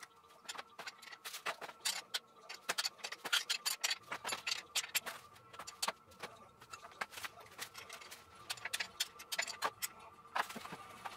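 Hand tools working the metal fasteners of a Honda CB500X's rear suspension and footrest area: a quick, uneven run of small metallic clicks and clinks, thickest in the first half.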